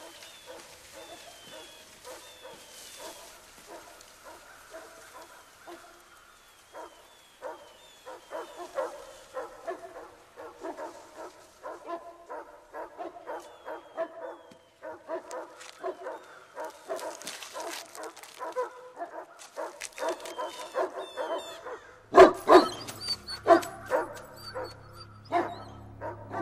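Dogs barking over and over, the barks growing louder and more frequent after the first third. Near the end a loud burst comes in with a deep held tone underneath as orchestral film music begins.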